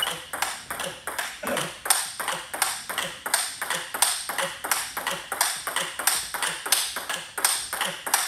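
Table tennis rally: the celluloid-type ball clicking rapidly and evenly off the rubber-faced bats and bouncing on the table, about three clicks a second without a break.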